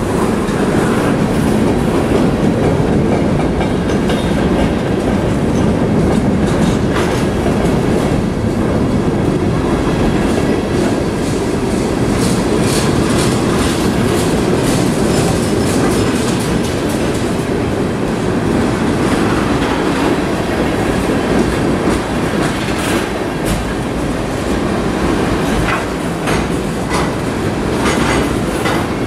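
Freight train cars (boxcars, covered hoppers and tank cars) rolling past: a loud, steady rumble of steel wheels on rail, with the wheels clicking over rail joints and sharper clicks around the middle and again near the end.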